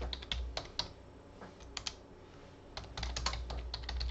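Typing on a computer keyboard: a run of keystrokes, a lull with only a couple of taps in the middle, then another quick run of keystrokes near the end.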